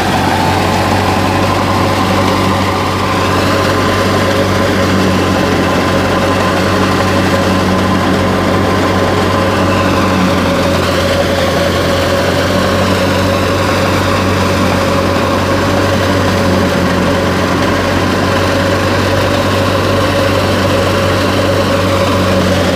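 Belarus 510 tractor's diesel engine running steadily under load, driving a wheat thresher, with the thresher's drum and blower turning along with it. The sound is a loud, even hum that holds a constant pitch throughout.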